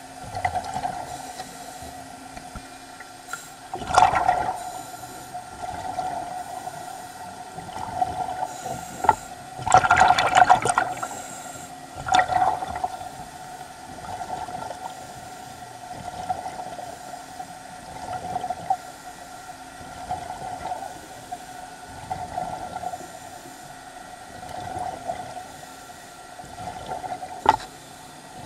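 Underwater water noise, with bubbling swells coming roughly every two seconds over a steady hum, typical of a diver's exhaled bubbles. There are louder bubbling rushes about four seconds in and again around ten to twelve seconds in, and a sharp click near the end.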